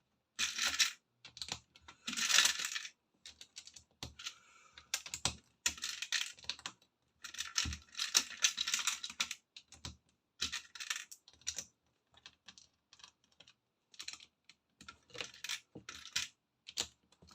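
Small plastic Lego pieces clicking and rattling by hand: short clattering spells of loose pieces, with single clicks between them.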